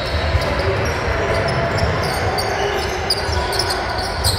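Basketball bouncing on a hardwood gym court with players' footfalls during a game, with repeated low thumps that echo in the hall.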